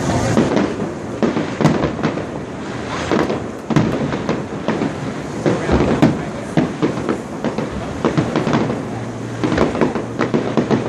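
Fireworks display: a continuous barrage of bangs and crackling bursts, several a second.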